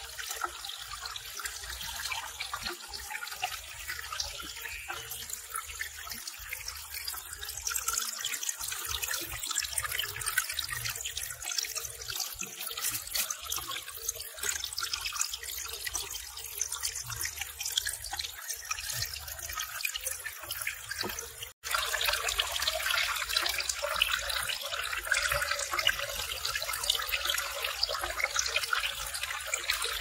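Water running and splashing steadily, the trickle of a small garden waterfall falling into a pond. It breaks off for an instant about two-thirds of the way through, then comes back a little louder.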